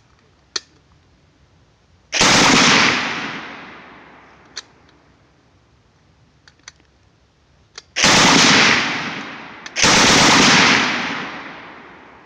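M1918A2 Browning Automatic Rifle in .30-06 firing three short full-auto bursts, each about a second long: one about two seconds in, then two close together near the end. Each burst is followed by a fading echo.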